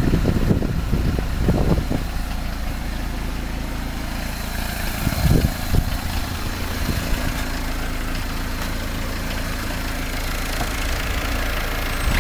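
1999 Peugeot 306 1.9 turbo diesel's four-cylinder engine idling steadily, with a few brief knocks early on and again about five seconds in.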